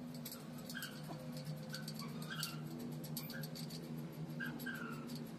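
Light metal clicks and taps from hands and tools working a coil-spring shock absorber in a spring compressor tool, over a steady low hum. Short, high, squeaky chirps come and go throughout.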